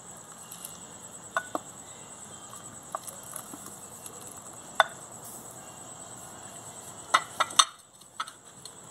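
Wooden spoon scraping cooked beans out of a glass bowl into a pot of broth, with sharp clinks and knocks of the spoon and bowl against each other and the enamel pot rim: a few scattered ones, the loudest about five seconds in, and a quick cluster near the end. A steady high-pitched whine runs underneath.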